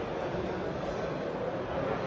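Steady background hubbub of a crowd in a large hall: many indistinct voices blended into an even murmur.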